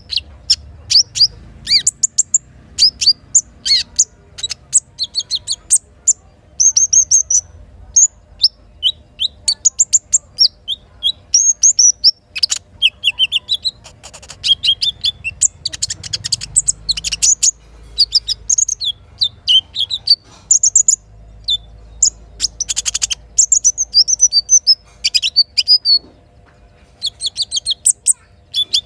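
Sogok ontong (little spiderhunter) song: rapid, high, sharp chirps and short trills in quick runs, played as a lure call to get caged birds singing.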